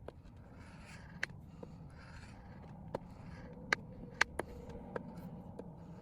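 A coin scratching the coating off a paper scratch-off lottery ticket: soft scraping in short patches, with several sharp clicks.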